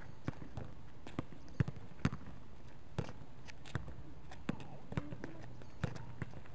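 Soccer ball being kicked against a practice wall and bouncing on asphalt, with running footsteps: a series of sharp thuds at uneven intervals, about half a second to a second apart.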